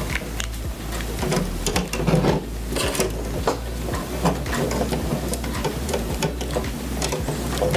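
Plastic clicking, knocking and rubbing as an action figure is handled and fitted into a plastic chain-link cage accessory on a tabletop, with a cluster of louder knocks about two seconds in.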